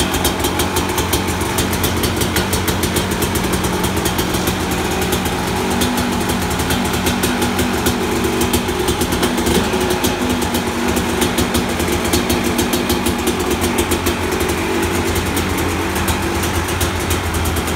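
A 2003 KTM 250 SX's single-cylinder two-stroke engine idling steadily.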